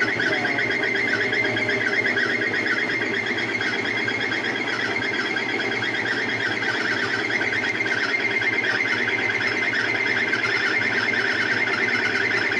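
Frigidaire 1-18 washer spinning its tub, a steady mechanical hum with a fast, evenly repeating high-pitched squeak over it.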